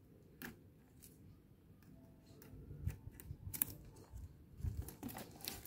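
Clear plastic shrink-wrap on a boxed tool set crackling and crinkling as fingers pick at it and peel it off: scattered faint clicks and rustles, sparse at first and busier from about halfway.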